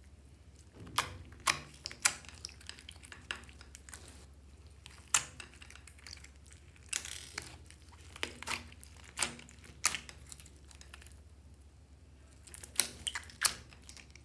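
Clear slime full of foam beads being squished and pressed by hand, giving irregular sharp pops and crackles in small clusters, over a faint low hum.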